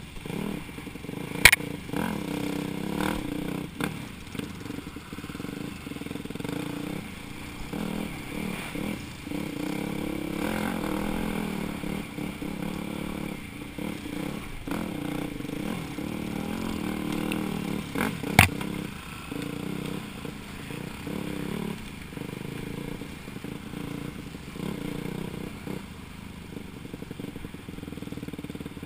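Dirt bike engine running on a trail ride, its pitch rising and falling with the throttle, with rattling and scraping from the rough ground. Two sharp knocks stand out, the loudest about a second and a half in and another at about eighteen seconds.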